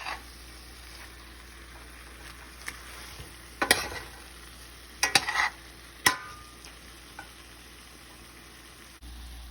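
Vegetables sautéing in a pan with a steady low sizzle, while a spatula stirring them knocks against the pan a few times in the middle.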